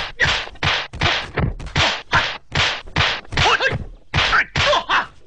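Rapid kung fu film fight sound effects: a dozen or so sharp punch-and-block whacks, two to three a second, with a couple of yells from the fighters mixed in.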